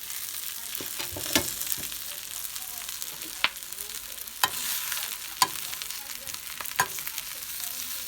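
Food sizzling in a hot skillet, a steady frying hiss broken by several sharp clicks or pops.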